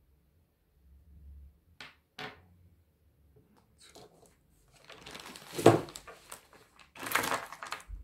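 A small stone set down on a tabletop with a couple of light clicks, then a plastic shopping bag rustling and crinkling as a hand rummages in it, with a loud knock about halfway through.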